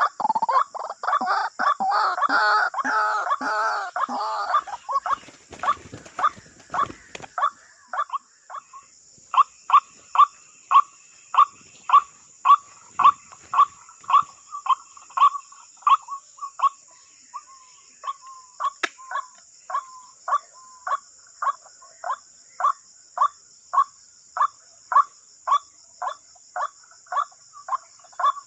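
White-breasted waterhen (ruak-ruak) calling: a dense, warbling run of calls for the first few seconds, then a long monotonous series of short single notes, about one and a half a second. Insects keep up a steady high hiss behind it.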